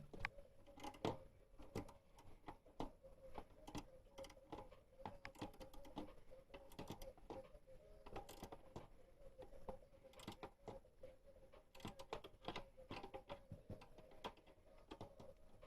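Faint, irregular clicks and metallic taps of a wrench tightening the alternator mounting bolts, over a faint steady hum.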